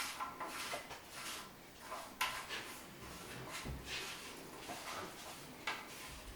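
Faint clicks, scrapes and rustling of a sink's pop-up drain assembly being handled while its lock nut is threaded on under the basin, with a few sharper ticks and a low thud.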